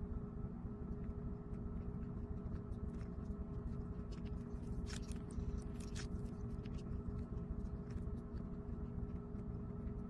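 A few short, wet squishes of kiwano (horned melon) pulp and seeds being squeezed out by hand, bunched between about four and six and a half seconds in. A steady low hum runs throughout.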